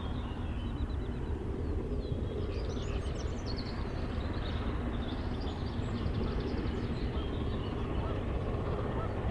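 Distant exhaust of 60163 Tornado, a three-cylinder A1 Pacific steam locomotive, working hard with a heavy 13-coach train: a steady, even sound with no separate beats. Birds chirp faintly over it.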